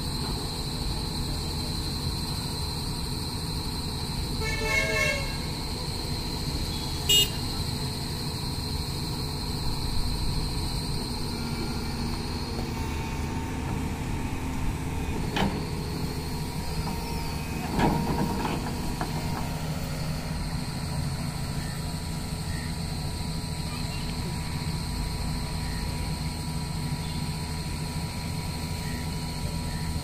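Doosan crawler excavator's diesel engine running steadily, with a few sharp knocks, the loudest about seven seconds in.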